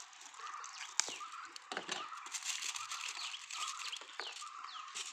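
Scissors snipping a plastic wrapper, with a sharp snip about a second in, then the wrapper crackling as it is pulled off a small box. Birds chirp throughout in the background.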